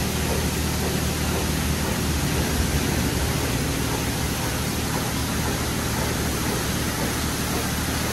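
Coleman Hanna Water Wizard touchless car wash spraying high-pressure water over a car: a steady, loud hiss of spray over a low, even pump hum.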